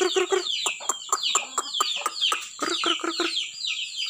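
Free-range village chickens (kampung and Bangkok game-fowl crosses) calling in a busy run of short clucks, mixed with chicks peeping in quick downward-sliding chirps.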